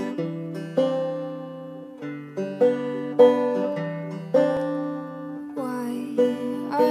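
Background instrumental music: plucked-string notes picking out a light melody over held low notes.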